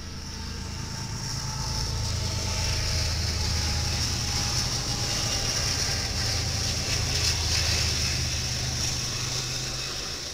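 BNSF diesel freight locomotives passing close by. Their engine drone builds, holds, and fades near the end as the tank cars follow, under a steady high hiss.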